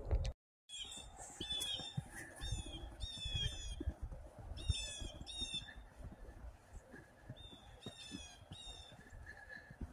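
A bird calling over and over, short falling notes mostly in pairs, with soft footsteps crunching in snow underneath.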